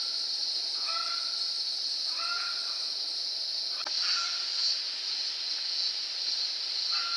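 Outdoor night ambience: a steady high-pitched insect chorus with short animal calls that repeat about once a second over the first few seconds, and again later on.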